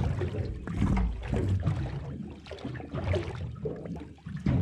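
Water lapping and slapping against the hull of a small aluminium boat in uneven surges.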